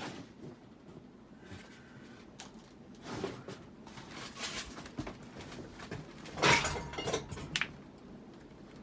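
A run of knocks and clatters as things are dropped, starting about three seconds in; the loudest is a sharp clatter about six and a half seconds in, followed by two smaller knocks. Underneath is a steady low hum of air from a Hunter Passport III ceiling fan running on high.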